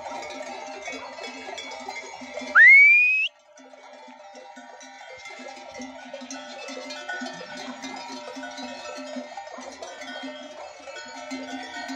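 Many goat bells on a flock clanking and ringing together in a dense, steady jangle. About two and a half seconds in, a loud whistle rises sharply in pitch for under a second, and the bells drop out briefly right after it.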